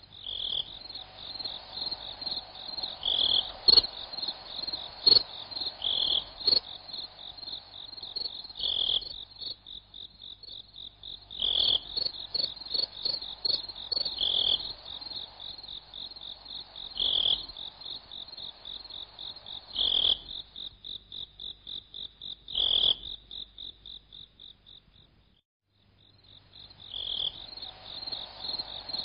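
Chorus of crickets and frogs: a steady, high, rapid trill with a louder chirp about every three seconds. It breaks off for about a second near the end, then starts again.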